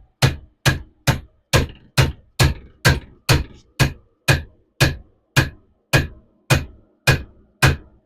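Steady hammer blows on a bearing race driver, a little over two a second, each a sharp metallic strike with a short ring, driving a new bearing race into a trailer hub.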